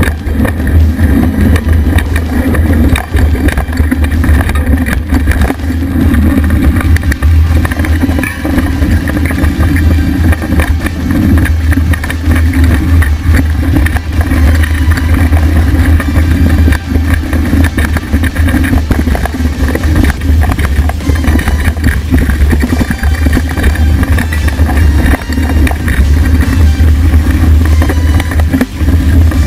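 Mountain bike riding fast down a dirt singletrack: steady wind rumble over a bike-mounted action-camera microphone, with the tyre rolling and the bike rattling over bumps in many short knocks.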